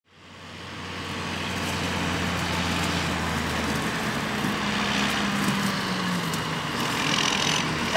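Heavy farm machinery running steadily, a forage harvester and tractors at work chopping and hauling corn silage, fading in over the first second. A low engine hum drops away about halfway through, leaving a steady mechanical din.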